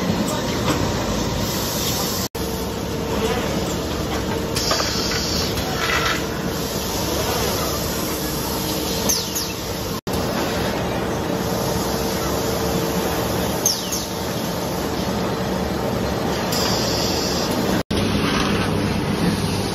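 Steady machinery noise from an automated flooring-box packaging line, with conveyors and a suction-cup gantry palletizer: a continuous hum and hiss with a few brief, high, rising squeaks. The sound breaks off and shifts abruptly three times.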